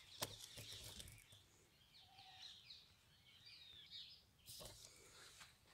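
Near silence with faint bird chirps, short quick pitch glides through the middle seconds. A soft knock near the start and another about four and a half seconds in.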